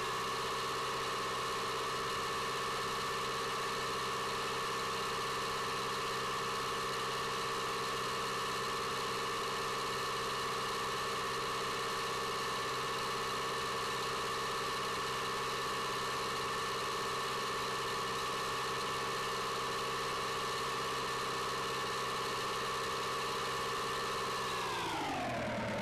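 Tractor engine running at raised, steady revs, then throttled back down near the end.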